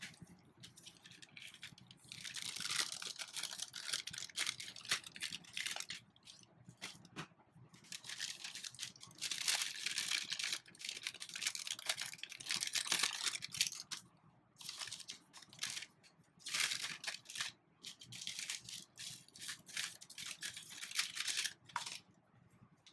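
Thin clear plastic packaging bag crinkling and rustling in the hands, in irregular stretches with short pauses.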